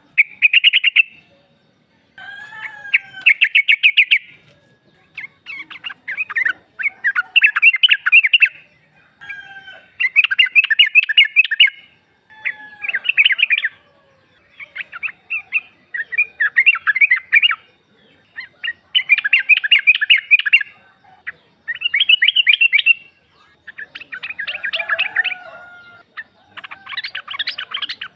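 Female sooty-headed bulbul (trucuk) calling: a series of rapid, chattering bursts of notes, each a second or two long, repeated after short pauses. This is the female's call to males.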